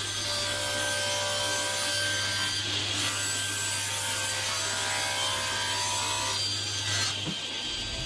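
Table saw running and ripping through a plywood sheet: a steady motor whine with the hiss of the blade in the wood. The cutting noise drops away near the end as the board clears the blade.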